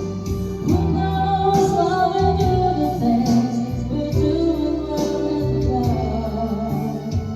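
A song playing with singing over a band, held sung notes above a steady beat of bass and drums.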